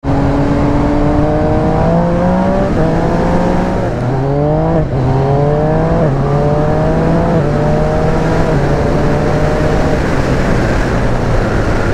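Yamaha MT-09's 847 cc three-cylinder engine through an Akrapovič exhaust, accelerating hard and changing gear with the quickshifter: the engine note climbs, then drops sharply at each shift, many times over. The engine note fades after about ten seconds.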